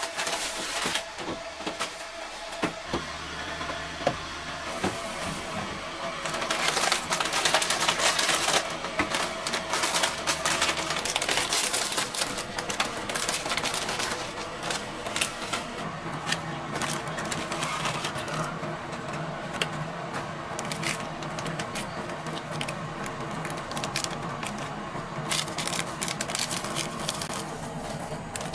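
Plastic bags and instant-noodle packets crinkling and rustling as they are handled and torn open, a dense run of small crackles and clicks. The rustling is loudest a few seconds in.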